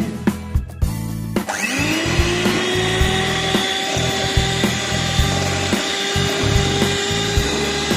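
Electric hand mixer switched on about a second and a half in, its motor whining up to speed and then running steadily as its beaters whip cream in a steel bowl.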